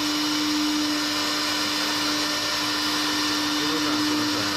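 A CNC wood lathe's electric router spindle running steadily while the machine works through a turning job: an even tone with a high hiss over it.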